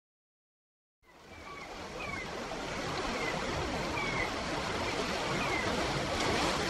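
Outdoor ambience fading in about a second in: a steady rushing noise with short, falling bird chirps repeating about once a second.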